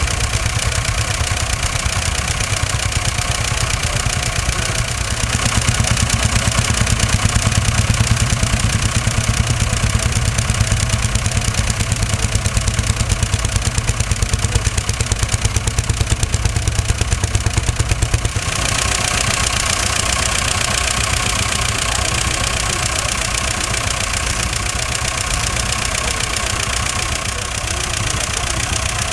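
Engines of a vintage Poclain hydraulic excavator and a tractor running steadily with a fast, even beat. About 18 seconds in the sound changes suddenly, becoming hissier with less low hum.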